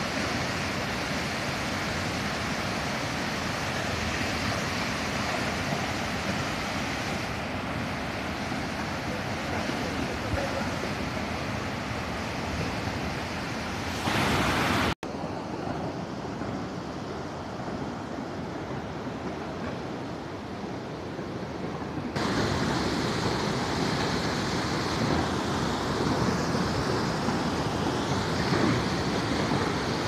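Steady rushing of a waterfall in flood, heavy brown floodwater pouring over rock ledges. The sound breaks off sharply about halfway through and comes back quieter, then grows louder again later on.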